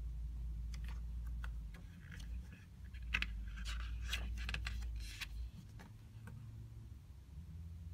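Pages of a small softcover art book turned by hand: paper rustling with a cluster of crisp clicks and snaps, busiest between about two and five seconds in. A low steady hum runs underneath.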